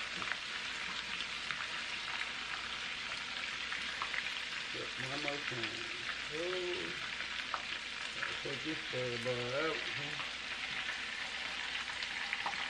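Stuffed catfish deep-frying in hot oil in a skillet: a steady crackling sizzle. A person's voice is heard briefly twice midway.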